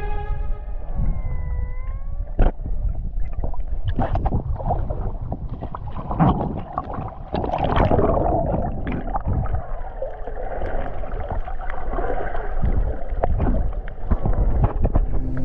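Underwater sound picked up by a GoPro during snorkeling: a muffled rumble of moving water with irregular gurgling, bubbling and scattered clicks.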